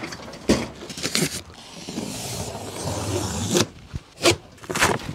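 Cardboard shipping box being handled and opened: a few sharp knocks and thumps, and a scraping, rustling stretch of about two seconds in the middle.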